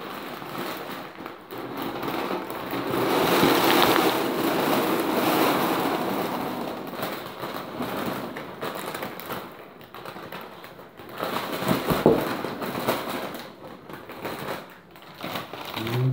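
Dry oat-ring breakfast cereal pouring from a plastic bag into a metal tin: a steady rattling rush that thins out into scattered patters and plastic rustling, with one louder clatter about twelve seconds in.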